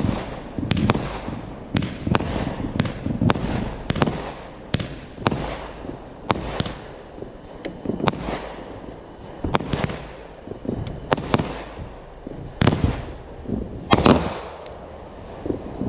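Fireworks exploding: an irregular string of sharp bangs, about one or two a second, each trailing off in a rumbling echo, the loudest near the end.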